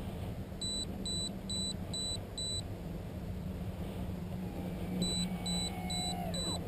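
Five short, high electronic beeps at about two a second, then another run of beeps from about five seconds in, over a steady low hum. Near the end the whine of the RC motor glider's brushless motor and propeller drops sharply in pitch as it flies low past.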